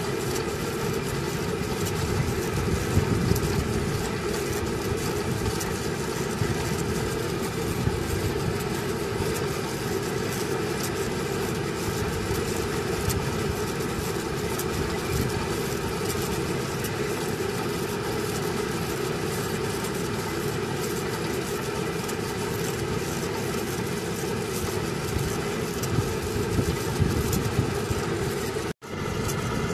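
Truck-mounted borewell drilling rig's engine running steadily under the mast, with a brief break near the end.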